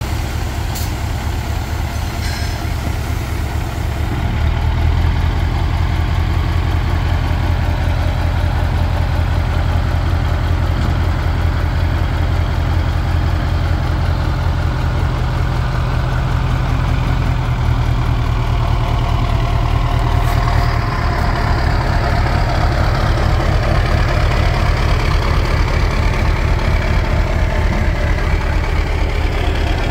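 Scania LS141 tipper truck's 14-litre V8 diesel running steadily. About four seconds in it steps up to a louder, heavier note as it drives the hydraulics that raise the tipper body, and the note shifts again around twenty seconds in.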